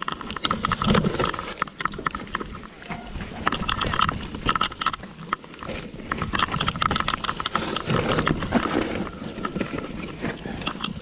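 Mountain bike descending a rooty forest trail: tyres rumbling over dirt and roots, with the bike clattering and knocking over every bump in quick, irregular succession.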